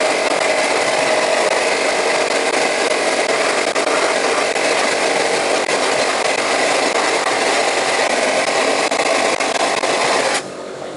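Wet blasting cabinet's gun blasting a piston with a steady, loud spray of air and abrasive slurry, cutting off suddenly near the end.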